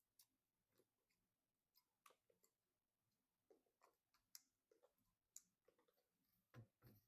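Faint, scattered clicks and light handling noises of computer parts being worked on by hand, at irregular moments with near silence between.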